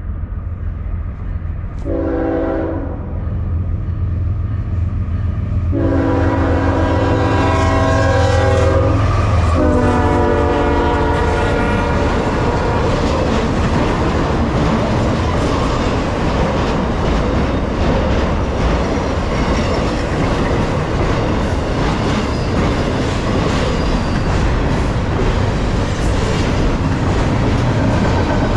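GE ES44AC freight locomotive at a grade crossing, diesel rumbling as it sounds its multi-chime horn: a short blast, a long blast, then a final blast a little lower in pitch as it passes. Then the steady rumble and clatter of intermodal trailer and double-stack container cars rolling past.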